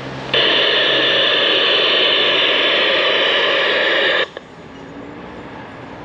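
A loud, steady hiss that starts abruptly just after the start and cuts off suddenly about four seconds later.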